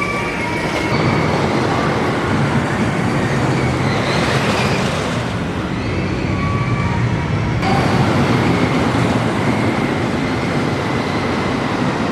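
Wooden roller coaster train running along its track, a loud continuous rumble of wheels on the wooden track.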